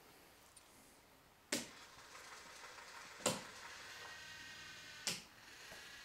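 N gauge model train running on the layout: three sharp clicks a little under two seconds apart, then a faint steady motor whine from about two-thirds of the way in.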